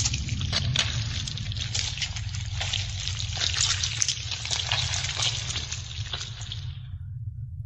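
Audio-drama sound effect: a dense run of crackles over a low steady hum, breaking off shortly before the end.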